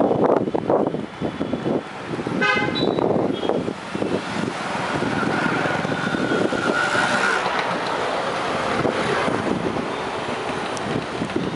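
Street traffic: the steady rumble of passing vehicles, with a short vehicle horn honk about two and a half seconds in.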